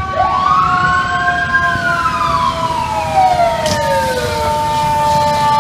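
FDNY fire truck mechanical sirens. One winds up quickly to a high wail about a second and a half in, then slowly falls away, over a second siren holding a steady tone that sags gradually lower.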